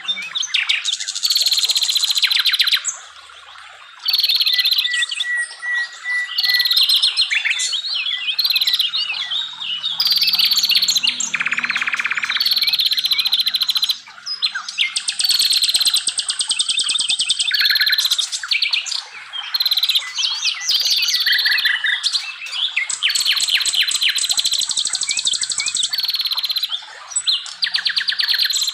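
Songbirds singing loud, varied phrases one after another: rapid trills, falling whistled notes and quick repeated notes, each phrase lasting a second or two with short breaks between them.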